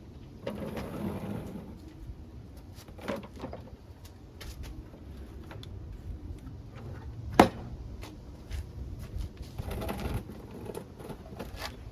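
Workshop handling noises: rustling and light knocks, with one sharp click about seven and a half seconds in.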